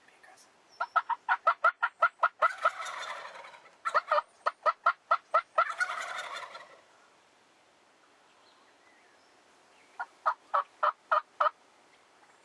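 Wild turkey calls: a rapid run of loud, sharp yelps followed by a rattling gobble, twice over, then another short run of yelps near the end.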